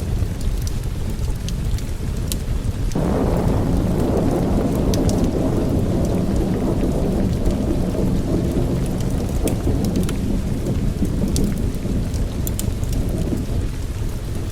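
Thunderstorm: steady rain with a roll of thunder that breaks in suddenly about three seconds in, rumbles for some ten seconds and fades near the end. Scattered sharp crackles sound over it.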